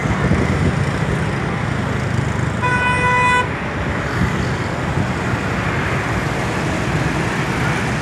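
Steady road traffic of motorbikes and cars passing on the bridge, with one vehicle horn toot about three seconds in, lasting under a second.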